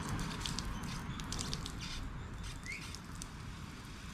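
Garden hose spray nozzle being adjusted by hand: a run of light clicks and rattles in the first second and a half, over a steady low background noise. A short rising bird chirp comes about two and a half seconds in.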